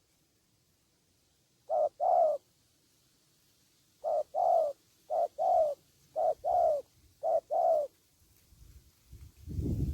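Spotted dove cooing: five two-note phrases, each a short note followed by a longer falling one, after a pause at the start. Low rustling and knocking begins near the end.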